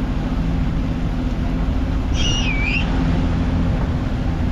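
Motorboat engine running steadily under way, a constant low hum. About two seconds in, a short, high whistle-like call briefly rises above it.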